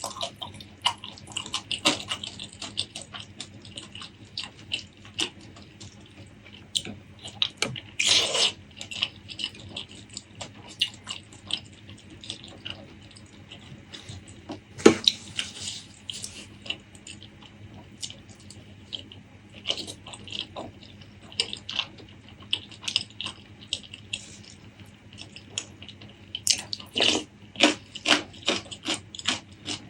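A person eating close to the microphone: wet chewing, smacking and mouth clicks in an irregular stream, louder for moments about 8, 15 and 27 seconds in.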